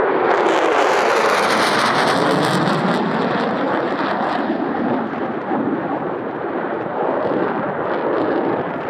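F-15 fighter jet passing low overhead: loud jet noise that starts suddenly with a crackling edge and a pitch that falls as it goes by, then settles into a steady rumble that slowly fades.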